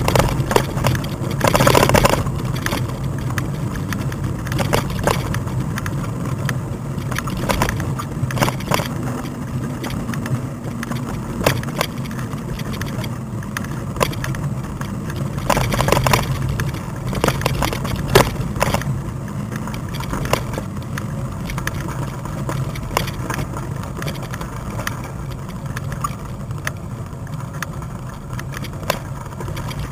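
A bike riding over a rough forest track: a steady low hum with frequent knocks and rattles over the bumps, the loudest at about two seconds and about sixteen seconds in.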